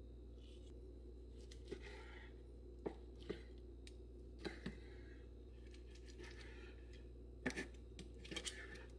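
Chef's knife slicing through a cooked boneless ribeye steak on a wooden cutting board: faint cutting strokes with scattered light knocks, some in quick pairs, as the blade meets the board, over a low steady hum.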